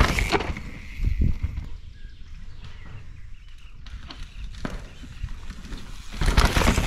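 Mountain bikes riding past on a dirt trail: a loud rush of tyre and bike noise as a rider passes close at the start, then quieter with a few knocks, and a second loud pass as the next rider comes by near the end.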